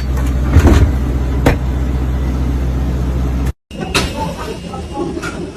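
Steady low hum inside an airliner cabin, with two heavy thumps as the cabin door is pushed shut. About three and a half seconds in the sound cuts off abruptly and gives way to a quieter background with light clicks.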